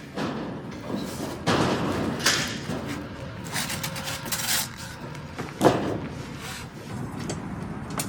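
Construction work inside a building under renovation: irregular knocks, thuds and scraping noises, with one sharp loud bang about five and a half seconds in.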